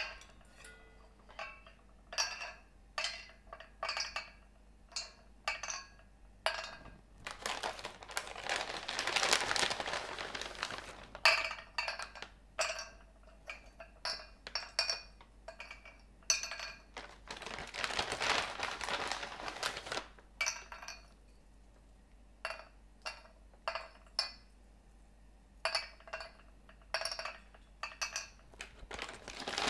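Whole almonds dropped by hand into the cups of a metal mini muffin tin, each landing with a small clink, a couple of clinks every second or two. Between them come a few longer stretches of plastic bag rustling as more almonds are taken out.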